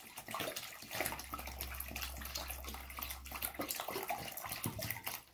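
Water glugging out of an upside-down 1-liter plastic bottle and splashing into a plastic tub of water, in irregular gulps as air bubbles up through the narrow neck against the outflow, which slows the emptying.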